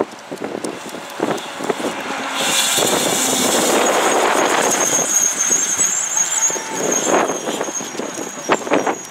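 A 2004 Pierce Saber fire engine drives past, with engine and tyre noise swelling to its loudest about three seconds in. After that, a high, thin squeal runs on for several seconds as the truck moves away.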